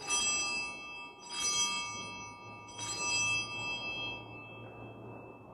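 Altar bells rung three times, about a second and a half apart, each ring leaving a bright shimmer of high tones that slowly fades: the bells that mark the elevation of the chalice at the consecration.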